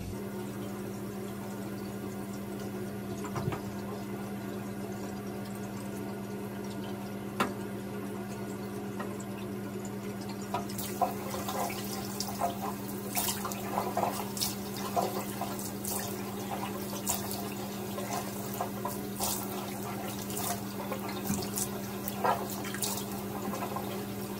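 Water splashing in a bathroom sink as hands scoop it up to rinse emulsified cleansing balm off the face, with a steady low hum underneath. The splashes start about halfway through and come irregularly.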